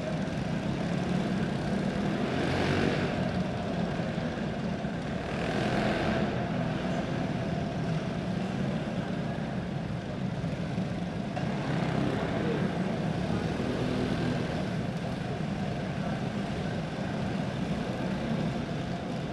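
A field of box stock Predator single-cylinder kart engines running at slow caution pace, a steady drone that swells several times as karts pass by.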